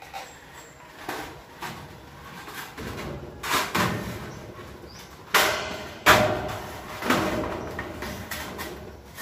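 Corrugated metal roofing sheet being handled against a steel roof frame: several sharp metallic knocks and rattles, the loudest two a little past halfway.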